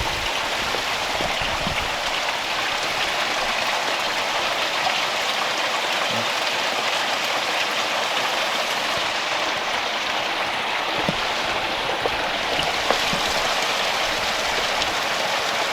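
Tiny waterfall and stream splashing over rocks: a steady, even rush of running water.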